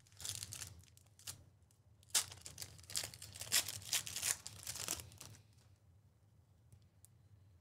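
Trading-card pack wrappers being torn open and crinkled: a brief rip near the start, then a run of quick rustling rips and crinkles from about two seconds in to just past five seconds.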